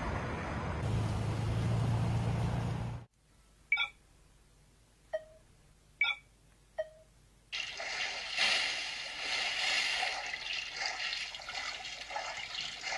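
Wind and traffic noise on a wet city street, cut off suddenly about three seconds in. Then four short pitched clicks from a mobile game's settings menu as it is tapped, and from about halfway the game's own sound of play, with water.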